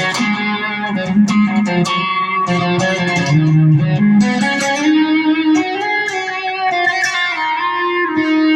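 Firefly FFST electric guitar played: a run of single-note lead lines, each note picked sharply and changing pitch in quick succession.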